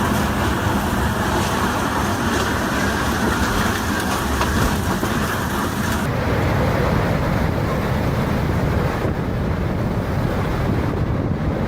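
Storm wind rushing and buffeting the microphone, a dense, steady noise. About halfway through, the high hiss drops away and a lower rush carries on.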